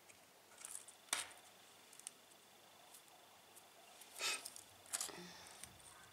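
Dry plaster and putty chips crackling and scraping as fingers pick through building debris on a bare concrete floor: a few short crackles, the sharpest about a second in, then a longer rustle and another crackle after four seconds.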